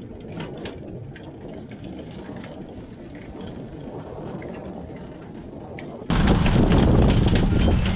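Wind buffeting the microphone of a camera on a moving bicycle, a steady low rumble with faint ticks; about six seconds in it jumps abruptly much louder.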